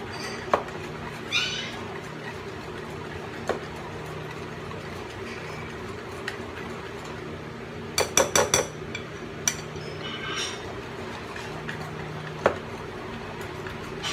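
Wire whisk beating an egg mixture in a bowl: scattered clinks of the whisk against the bowl, a few short scrapes, and a quick run of four clinks about eight seconds in.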